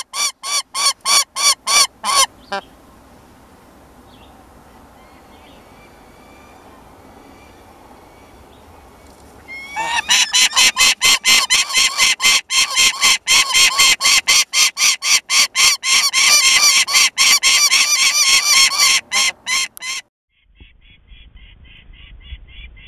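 Peregrine falcon giving rapid series of harsh, repeated calls, several a second. A short run at the start and a long loud run from about ten seconds in stop abruptly a few seconds before the end, leaving only faint background noise.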